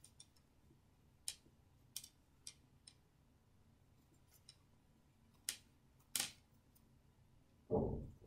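Faint scattered clicks and ticks of a crochet hook and yarn being worked by hand while double crochet stitches are made. A louder muffled bump comes near the end.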